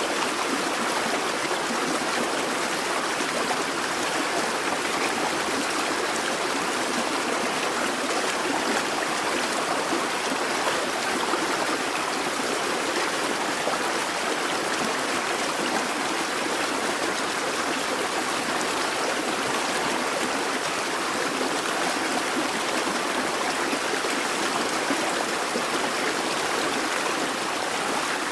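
A busy babbling brook: water running and burbling over stones in a steady, unbroken rush.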